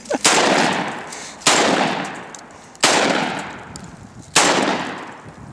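Saiga 12 semi-automatic 12-gauge shotgun firing four shots, about one and a half seconds apart, each trailing off slowly before the next.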